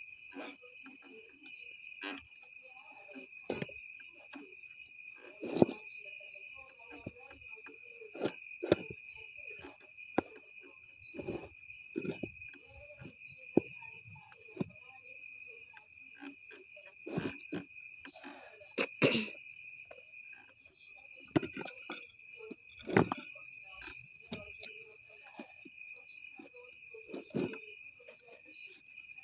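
A wooden stirring stick knocking and scraping against a metal cooking pot at irregular intervals, every second or two, as a stiff white porridge is worked. Behind it, a steady chorus of crickets.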